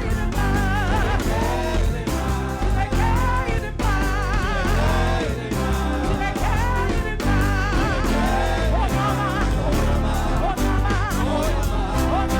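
Gospel praise-and-worship music: a singer with a band, the sung notes wavering with vibrato over sustained chords and a heavy, pulsing bass.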